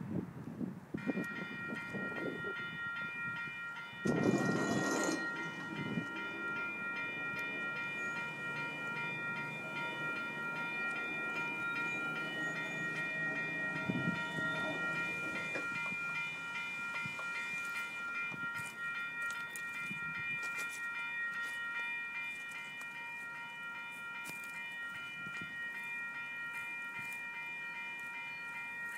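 Railroad grade-crossing warning bell ringing steadily, starting about a second in, signalling an approaching train. A brief loud rush of noise about four seconds in.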